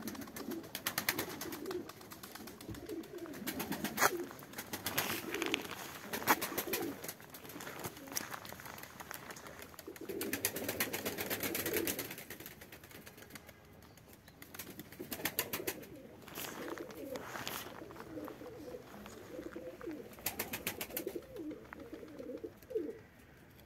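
A flock of domestic pigeons cooing on the ground, with several short bursts of rapid wing-flapping.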